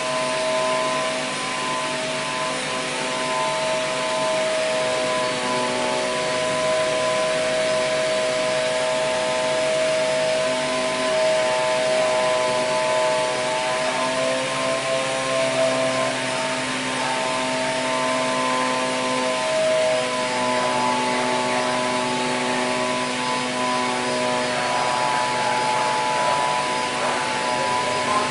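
Machinery running in a workshop: a steady whirring hiss with several held tones that shift slightly in pitch a couple of times.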